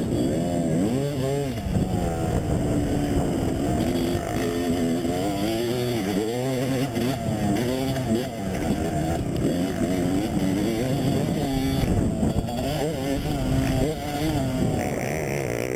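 Motocross dirt bike engines revving hard and easing off again and again, the engine note rising and falling in repeated sweeps as the bikes accelerate and shift around the track.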